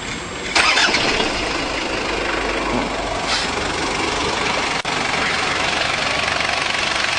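Four-cylinder turbo-diesel engine of a 2000 Toyota Hilux Surf starting: it catches with a loud burst about half a second in and settles into a steady idle, pretty calm, which the owner credits to a home-made hydrogen injection kit.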